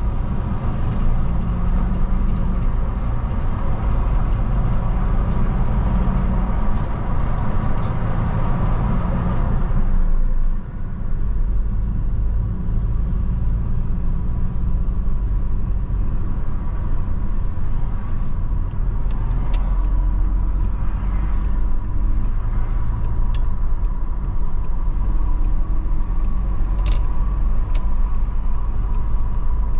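A car driving on a paved road: a steady rumble of engine and tyre noise, strongest at the low end. About a third of the way in the higher hiss drops away and the sound becomes duller.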